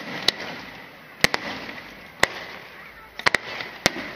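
Aerial fireworks shells bursting: sharp bangs about once a second, two in quick succession a little past three seconds in, over a steady hiss.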